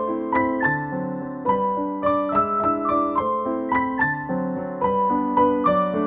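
Background piano music: a melody of struck notes, about three a second.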